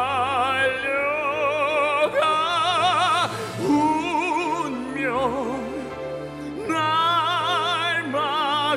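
Male musical-theatre singer belting long held notes with a wide vibrato over an instrumental backing track, quieter for a moment around the middle before swelling back into a long sustained note.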